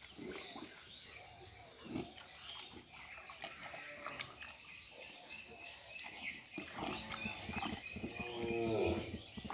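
A cow mooing: one long, low call starting about two-thirds of the way in and growing louder toward the end. Before it, scattered knocks and crunches of a cow feeding from a plastic bucket.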